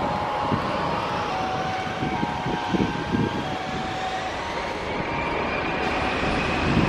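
Twin jet engines of an airliner whining steadily at the runway end, their pitch rising slowly over the last few seconds as they spool up for takeoff. Wind buffets the microphone with a gusty low rumble.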